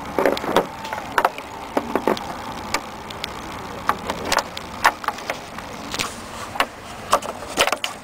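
Irregular sharp clicks and taps of needle-nose pliers gripping and twisting a plastic bulb socket in a headlight housing, several in quick succession around the middle and near the end.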